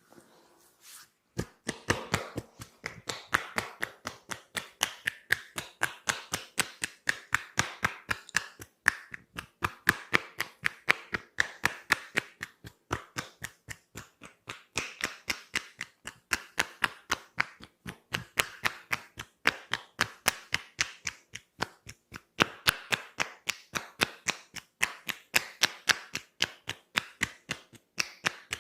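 Hands tapping and slapping on a person's body in percussive massage strokes: a fast, even run of sharp strikes, several a second, starting about a second and a half in.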